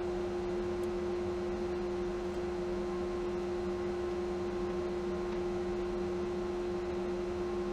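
Steady hum of a running workshop machine: one constant tone with a weaker, lower one beneath it, unchanging throughout, with no cuts heard.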